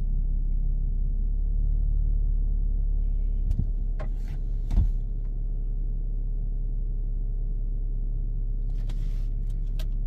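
A 2011 VW Touareg's diesel engine idling steadily with a low rumble, just after a hard start and with the glow plug warning lit. Two short knocks sound about three and a half and five seconds in.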